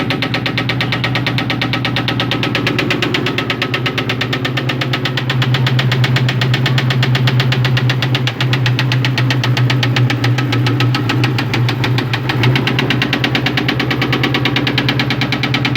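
2001 Ford Mustang GT's 4.6-litre V8 running with a fast, steady rod knock, the sign of a failing connecting-rod bearing.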